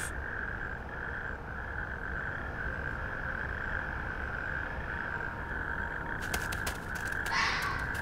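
A chorus of natterjack toads calling: a steady, high, rasping trill. A few sharp clicks come near the end, and then a louder, nearer call.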